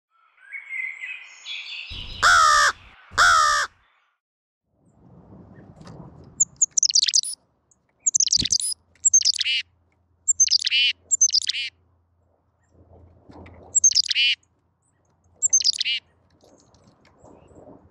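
Carolina chickadee calling in short harsh bouts of high notes that sweep downward, about seven times, with a single sharp tap about halfway through. Near the start come two loud drawn-out pitched calls, the loudest sounds here.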